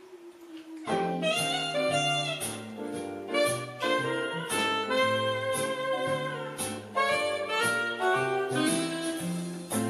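Jazz-style background music starting about a second in: a melody line over a steady, stepping bass with a regular beat.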